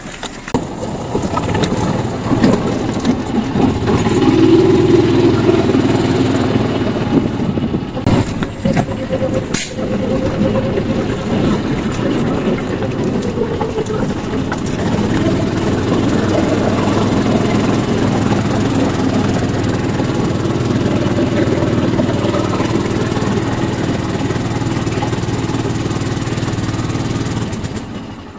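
Motor vehicle engine running steadily with a low, even hum and road noise, dipping briefly around nine seconds in.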